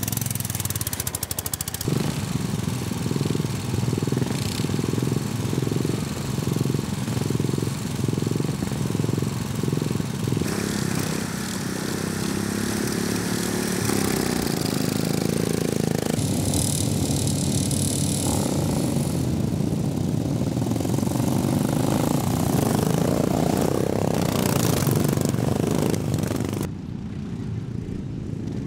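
Engines of racing ride-on lawn mowers running and revving, several machines together, the sound changing abruptly a few times.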